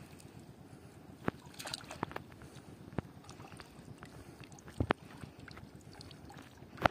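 Water splashing and dripping as a wet cast net is handled and gathered in shallow water. Several short, sharp splashes over a low, steady wash; the loudest comes near the end.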